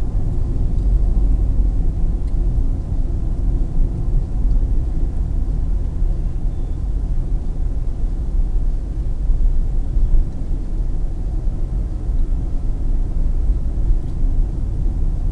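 Steady low rumble of a car driving at about 60 km/h, heard inside the cabin: engine and tyre-on-asphalt road noise.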